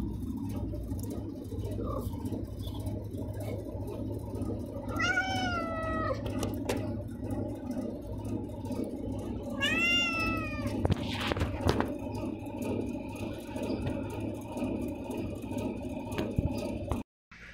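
A malnourished stray black-and-white cat meowing to beg for food: two drawn-out meows about five and ten seconds in, each rising then falling in pitch, over a steady low background rumble.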